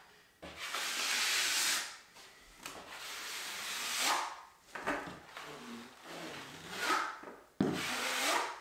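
A flexible 6-inch steel drywall knife scraping wet Easi-Fill plaster across plasterboard joints, in a series of strokes each lasting about a second, with short pauses between them.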